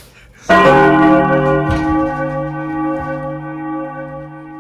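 A large church bell struck once, tolling midnight: a loud strike that rings on with a rich cluster of steady tones and fades slowly.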